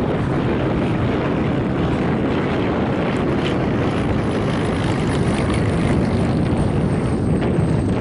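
De Havilland Canada DHC-6 Twin Otter's twin PT6A turboprop engines and propellers running steadily as the aircraft moves along the runway, with a faint high whine coming in about halfway through.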